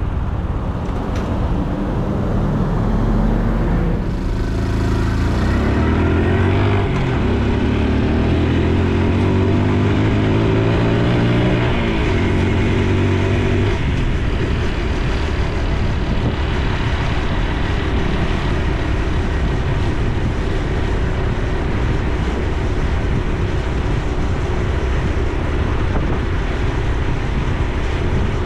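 Honda Super Cub C125's 125 cc single-cylinder engine and exhaust while riding, its pitch rising and falling through the first half. After that, a steady rush of wind and road noise mostly covers the engine.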